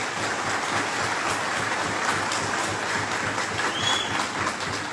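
Audience applauding: dense clapping at an even level.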